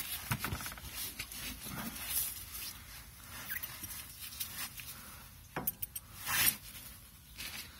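Compressed-air blow gun with a rubber tip pressed to an engine's oil drain hole, hissing in irregular short bursts as air is forced into the sump to push the old oil out. Two louder bursts come in the last third.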